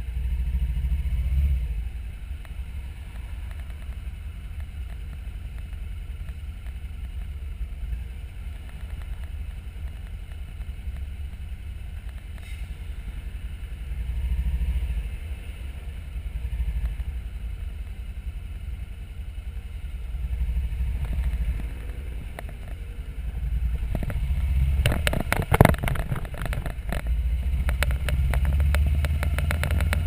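Motorcycle engine and wind noise on the move, with a low steady running sound that swells and eases several times. About 25 seconds in, a short burst of sharp clattering, the loudest moment, as the wheels go over the railway crossing's tracks.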